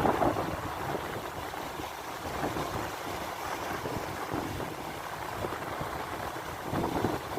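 Sea water washing and rushing in a steady, uneven wash of noise that swells at the start and again near the end.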